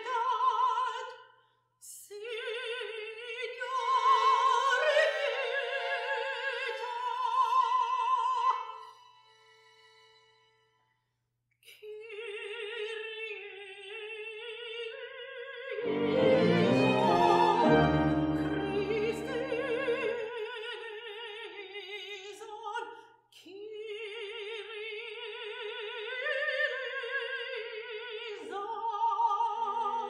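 Operatic soprano singing long held notes with a wide vibrato, in a contemporary classical chamber piece with violin, cello and piano. The voice breaks off briefly about two seconds in, and again for about two seconds around ten seconds in, and low held instrumental notes sound beneath it around the middle.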